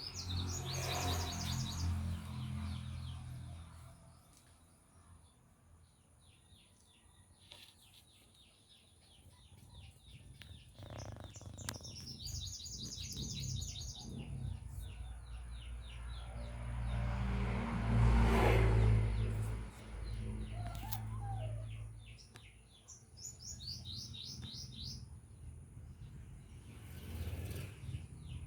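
Dawn birdsong: a songbird sings a short, rapid trill of high notes three times, about ten seconds apart, with fainter chirps between. A low rumble swells and fades in the middle.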